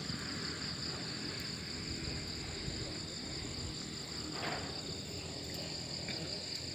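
Steady high-pitched chorus of insects such as crickets, over a continuous low rumble, with a brief rush of noise about four and a half seconds in.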